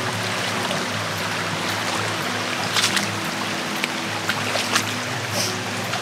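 A shallow rocky creek running and trickling, under soft background music with sustained low chords. A short sharp sound cuts in about three seconds in.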